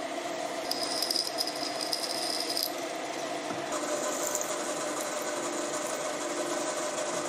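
Milling machine spindle running steadily while a small twist drill bores into a hardened steel parting blade. A high-pitched cutting squeal from the drill comes in about a second in and again, higher, from about four seconds in.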